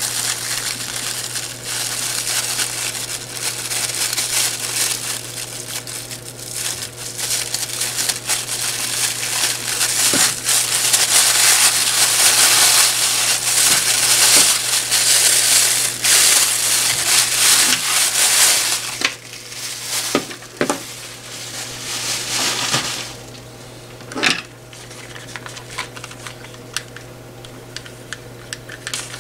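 Thin plastic bag crinkling and rustling continuously as hands untie and pull it off a pair of headphones. It stops about two-thirds of the way in, leaving a few light clicks and taps as the headphones are handled.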